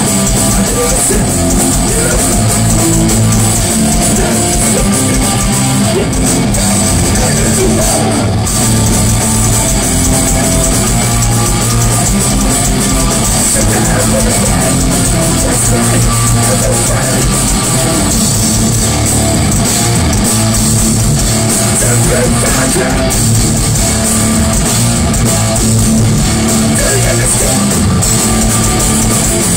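A hardcore punk band playing live and loud: electric guitars and a drum kit, with the vocalist on a microphone.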